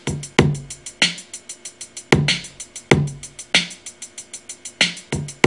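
Hip hop drum loop from a Maschine step sequencer playing back: a closed hi-hat ticks evenly on every sixteenth step, about eight a second, under heavier snare and drum hits.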